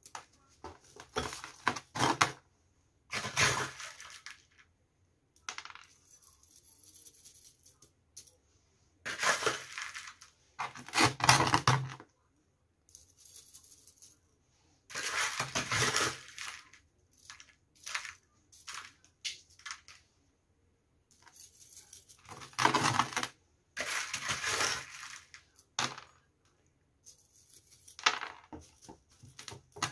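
Small stones of dark gravel topping poured from a metal spoon into a plant pot around a succulent, clinking and rattling in irregular bursts with quiet gaps between.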